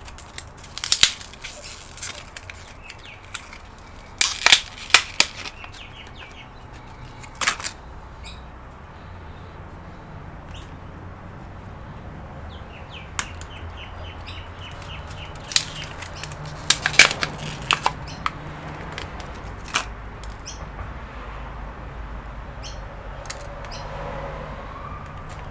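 Scattered sharp clicks and small knocks from hands working inside a laptop as its DDR4 memory modules are handled, unclipped and swapped, over a low steady hum.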